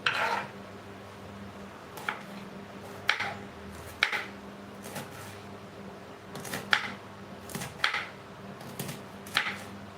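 Sharp clicks and knocks of kitchen utensils, roughly one a second, over a steady low hum.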